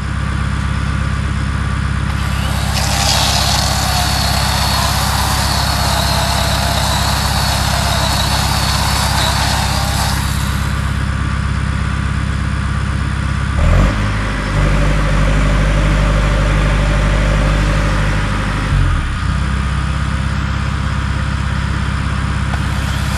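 Boom lift's engine running steadily, rising to a higher, stronger pitch for about five seconds in the second half as the boom lifts the basket. A higher wavering whine rides over the engine from about three seconds in to about ten seconds in.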